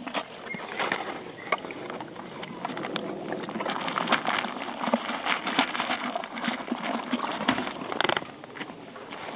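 Horses chewing popcorn: a dense, irregular crunching and crackling of many small bites.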